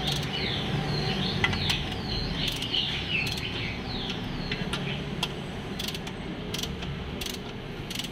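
Ratcheting box-end wrench clicking in short runs as the bolts of a new clutch pressure plate are tightened down onto the flywheel, a little at a time around the plate.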